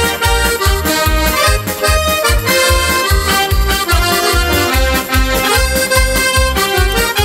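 Instrumental passage of a Slovak folk-song medley: an accordion playing the melody over a steady bass beat about twice a second.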